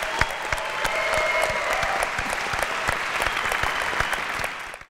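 Large audience applauding, a dense, steady run of hand claps that cuts off abruptly near the end.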